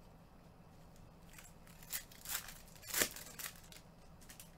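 Trading-card pack wrapper being torn open: a few short crinkly rips and rustles, the loudest about three seconds in.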